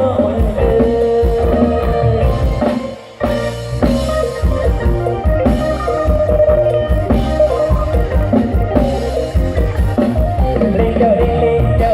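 Mor lam band playing an instrumental passage: drum kit with a steady beat and bass drum under a plucked-string melody. The music thins out briefly about three seconds in, then the beat comes back.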